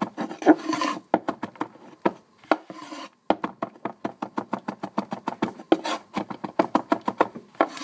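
Cleaver mincing garlic on a wooden cutting board: rapid, even knocks of the blade on the board, about six a second, broken by a few short pauses and brief scrapes.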